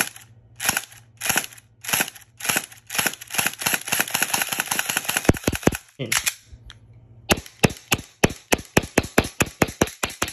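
Airsoft blowback pistol firing: single shots a little over half a second apart, then speeding up into quick strings of several shots a second. There is a pause of about a second just after the middle, then another rapid string. A low steady hum runs under the first half.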